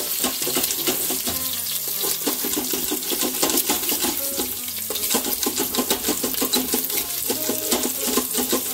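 A utensil scraping browned, stuck-on bits off the bottom of a hot stainless-steel Instant Pot inner pot in quick repeated strokes, over the sizzle of the hot oil left from searing the chicken.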